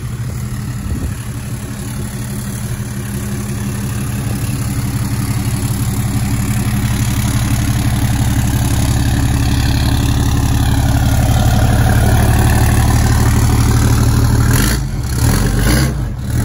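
2018 Ram 2500's 6.7-litre Cummins turbo diesel running as the truck moves about, growing steadily louder. The turbo adds a jet-like whistle that wavers up and down about halfway through.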